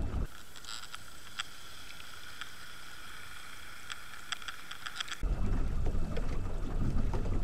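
Underwater sound heard while trolling: a steady high whine, typical of the boat's outboard propeller heard through water, with scattered sharp clicks. About five seconds in it switches to the above-water sound of the outboard running at trolling speed, a steady low rumble with wind.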